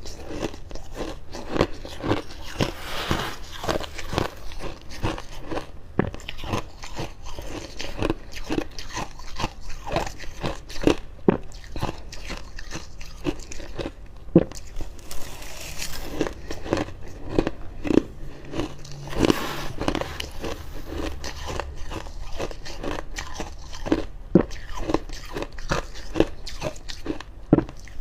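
Freezer frost being bitten and chewed: a steady run of dry crunches, several a second, with chewing between bites.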